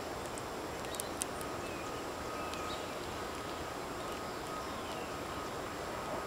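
Steady outdoor background noise with faint, scattered bird chirps, and two light clicks about a second in.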